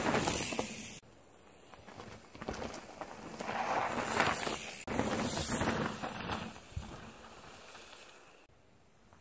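Mountain bike passing close by on a rocky dirt trail, the rolling noise of its tyres on dirt and stones swelling as it nears and fading as it goes. Three passes, each starting or stopping abruptly.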